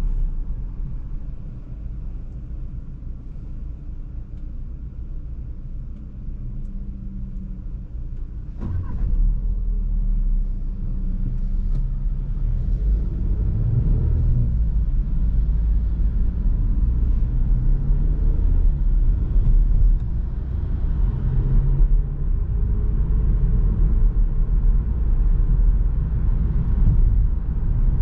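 Seat Arona's 1.5 TSI turbocharged four-cylinder petrol engine and tyre rumble while driving, heard from inside the car. About nine seconds in there is a short knock, after which the engine gets louder as the car pulls harder, with a faint rising whine later on.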